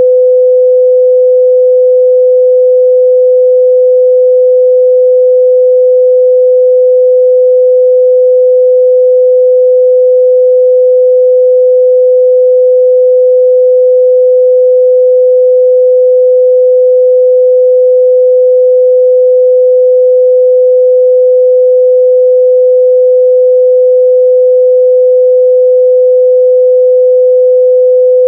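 Continuous 505 Hz sine-wave test tone, one steady pure pitch at constant loudness.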